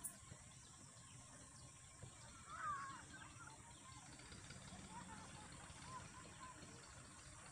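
Quiet outdoor background with a bird calling: one clear wavering call about two and a half seconds in, followed by a few faint short chirps.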